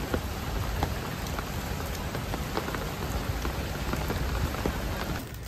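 Steady rain falling, an even hiss with scattered sharp ticks of individual drops.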